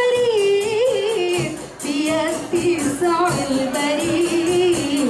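A female voice sings an ornamented, gliding melody over rebana frame drums struck in a steady rhythm. There is a brief break about two seconds in.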